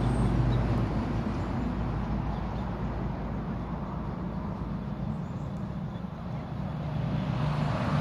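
Steady rumble of road traffic with a low engine hum, easing a little about two-thirds of the way in and growing louder near the end.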